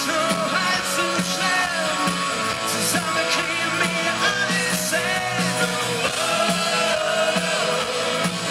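A live rock band playing: a singer sings over electric guitars and a drum kit.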